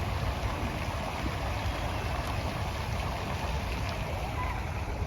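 Steady engine rumble and road noise inside a moving TransJakarta city bus.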